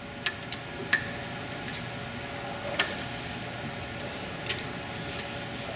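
Light metallic clicks of an Allen wrench turning and reseating in a bolt head as the bolt is unscrewed, about five scattered over a few seconds, over a steady background hum.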